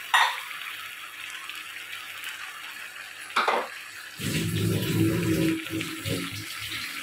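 Water being poured into a pan of chicken and ground masala paste, with a splash just after the start and another about three and a half seconds in, over a faint steady hiss. In the last few seconds a louder, lower sound with a steady pitch comes in and breaks off unevenly.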